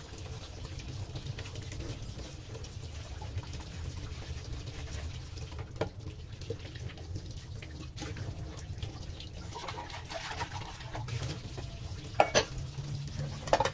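Kitchen tap running steadily into a stainless steel sink as dishes are rinsed under it, with a few clinks and knocks of the dishes being handled; the loudest knock comes near the end.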